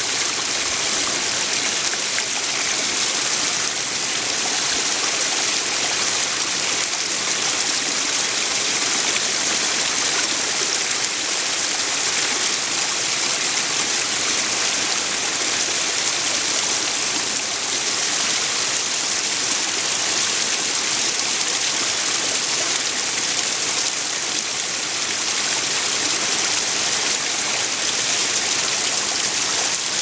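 Small waterfall trickling and splashing over rocks: a steady, even rush of running water.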